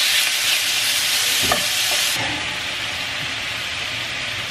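Vegetables and curry paste sizzling in a hot frying pan on a gas hob while a wooden spatula stirs them, with a soft knock about one and a half seconds in. The sizzle turns quieter and duller about two seconds in.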